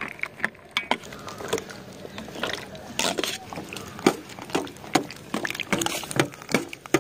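Steel spoon stirring chocolate cereal in milk in a stainless steel bowl: irregular clinks of spoon against the bowl, about two a second, with wet sloshing of milk and cereal.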